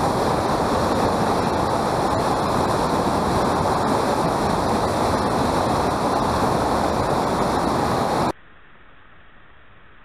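Loud, steady rush of whitewater pouring over rocks in a small river cascade. It cuts off abruptly about eight seconds in, leaving only a faint hiss.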